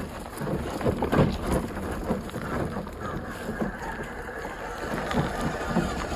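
1:10 scale RC crawler (MST CMX Mitsubishi Delica van) driving over rough trail ground: irregular crunching and knocking of tyres and suspension over dirt and rocks, with a faint steady whine from its electric motor.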